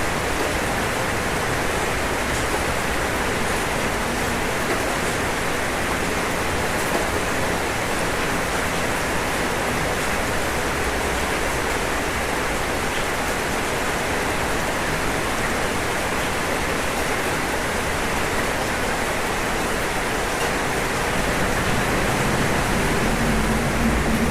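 Steady rain falling on a roof, an even continuous patter. Near the end a low mechanical hum joins in.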